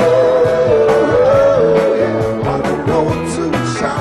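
Live 1970s rock band playing: drums, bass and guitar under a male lead vocal that holds a long, slightly wavering note through the first half.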